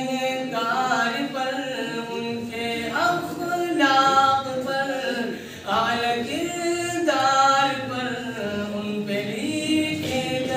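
A young man singing a naat unaccompanied, in long held, ornamented phrases with short breaks between them.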